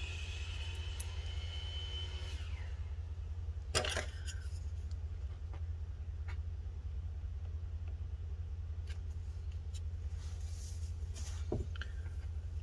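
Faint handling sounds of battery adhesive being peeled from inside a laptop: a few small clicks and taps, the clearest about four seconds in and near the end, over a steady low hum. A thin high squeal fades away in the first two seconds.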